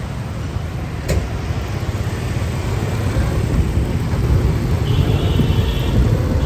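Road traffic on a city street: a steady rumble of passing motor vehicles that grows slowly louder. There is a single click about a second in and a short high tone about five seconds in.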